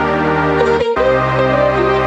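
Background music made of sustained notes, with a brief break just under a second in.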